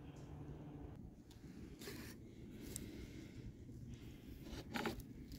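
Faint rubbing and scraping: a few short scrapes, the loudest near the end, over a low rumble.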